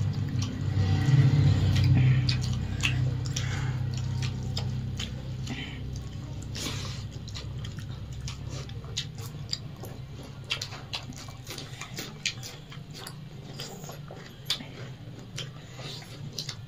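People eating rice and egg curry by hand: chewing and lip-smacking, with wet squishing of fingers mixing rice on steel plates, heard as many short scattered clicks. A low hum underneath during the first few seconds fades out.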